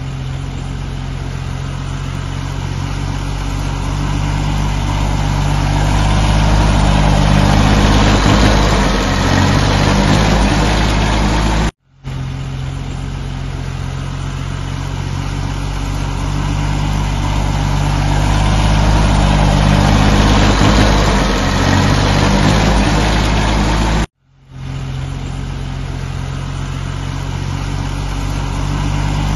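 Compact tractor's diesel engine running steadily at low speed as it drives past, swelling louder for several seconds and then easing off. The sound cuts out briefly twice, about 12 and 24 seconds in, and the same stretch of engine sound starts over each time.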